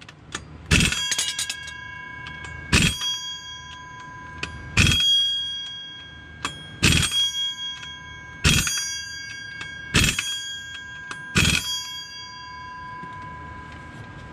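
Air impact wrench fired in seven short bursts, about two seconds apart, on the flywheel bolts of a Nissan SR20 GTi-R engine. Each burst sets the competition flywheel ringing like a bell. This is the final tightening of the red-Loctited bolts.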